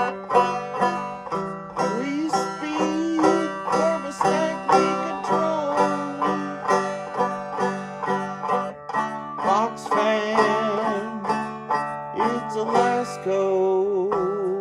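Bluegrass-style instrumental break led by a quickly picked banjo, with other plucked strings and some notes bending in pitch.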